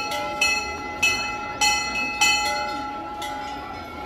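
Metal temple bell struck repeatedly, about five strokes a little over half a second apart, each ringing on with several clear steady tones; the strokes stop about two and a half seconds in and the ringing fades. A crowd murmurs underneath.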